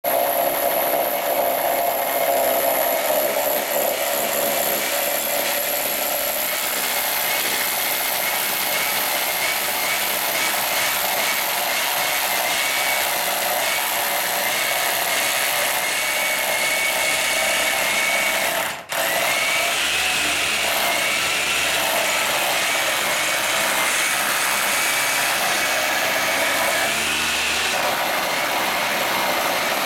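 A power tool running continuously, with a steady noise and a thin, slightly wavering high whine; the sound cuts out very briefly about two-thirds of the way through.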